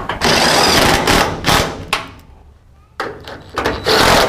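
Cordless impact driver running bolts into a door-brace mount at the car's door striker, in two long bursts with about a second's pause between them.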